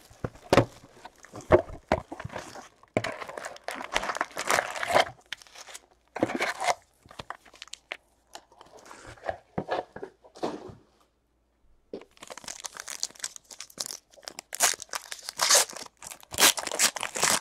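Cardboard box being opened and foil-wrapped trading card packs being handled, crinkling and tearing in irregular bursts, with a short pause about two-thirds of the way through. A pack's foil wrapper is torn open near the end.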